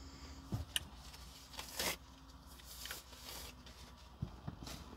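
Faint rustling and a few soft clicks and knocks of someone shifting about and handling things, over a low steady hum.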